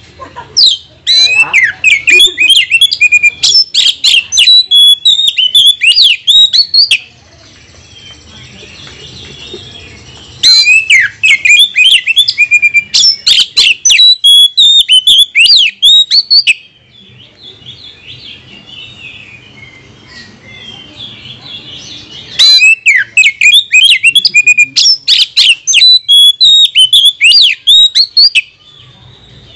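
Oriental magpie-robin (kacer) singing a loud, fast song of sharp whistles and clicks. It comes in three bursts of about six seconds each, with quieter twittering in the pauses between them.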